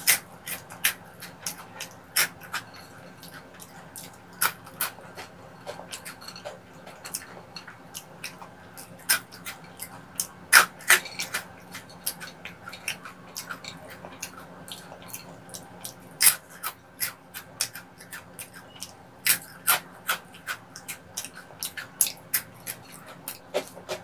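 Close-up crunching and chewing of crispy snacks, honey twists and Cheetos, as sharp irregular crunches several times a second.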